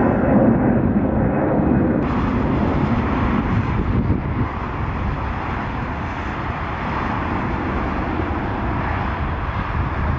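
Jet airliner engine noise: the steady roar of an easyJet Airbus A320-family jet climbing out after takeoff, which gives way about two seconds in to a steady rushing rumble of jet engines on the airport apron.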